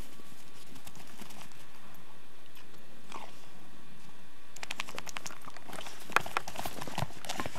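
Dog biting and mouthing a hard plastic Jolly Ball, teeth and paws knocking against it and the snow: quiet at first, then from a little past halfway a rapid run of clicks and knocks, with one sharper knock.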